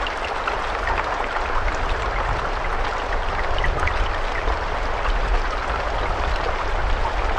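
Steady rain, a continuous hiss of falling water with many separate drops ticking through it and a low rumble underneath.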